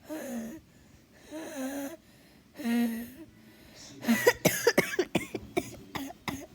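A sick person wheezing: three short, pitched wheezy breaths, then a fit of rapid coughs from a little past halfway, the loudest part.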